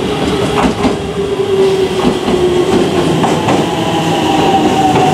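Aichi Loop Railway 2000 series electric train pulling into the platform, its motor whine slowly falling in pitch as it slows, with wheels clicking over the rail joints as the cars pass close by.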